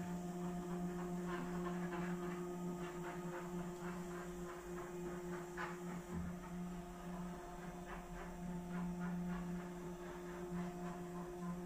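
Stepper motors of an Ooznest WorkBee CNC machine driving the gantry and carriage as the machine homes: a steady, even-pitched hum.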